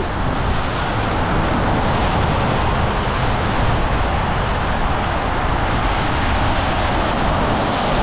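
Steady, even rush of street traffic noise and wind against the microphone, with no separate sounds standing out.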